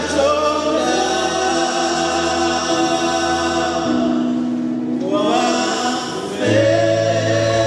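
Gospel choir music: voices singing long held chords over a steady bass, with a short break about five seconds in before the next phrase begins.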